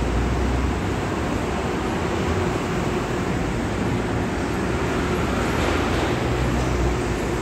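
Steady hum and rumbling noise of a CPTM electric multiple unit standing at a station platform, with no sharp events and no change in level.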